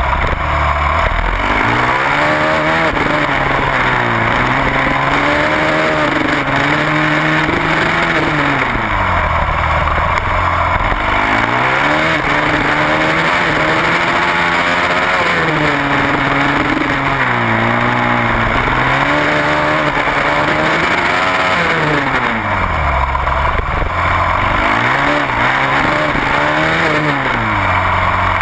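Supermoto motorcycle engine heard from on board at race pace, revving up through the gears on the straights and dropping sharply under braking and downshifts into corners, again and again, over steady wind noise.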